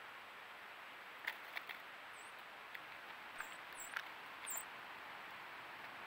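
Steady trail-camera hiss with a scatter of sharp clicks from about a second in, as a sparrow pecks through sunflower seed and cracked corn on a tray feeder. A few short, very high chirps come between two and five seconds in.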